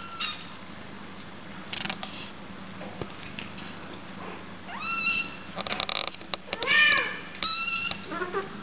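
Sphynx kittens mewing: a short high mew at the very start, then several more in the second half, the loudest about seven seconds in. A few light clicks come around six seconds in.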